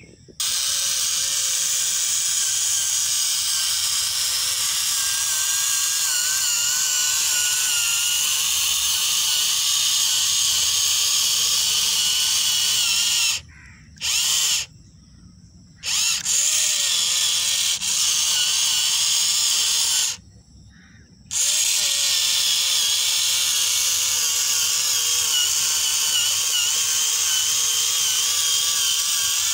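Small electric motor of a homemade mini model tractor whining steadily as it drives. Its pitch wavers with the load, and it stops briefly three times before starting again.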